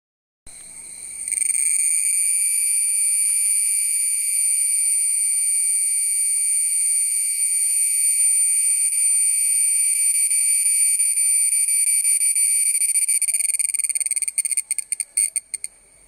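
Cicada singing: a loud, steady, high-pitched shrill buzz that breaks into a stutter of short pulses near the end and then stops.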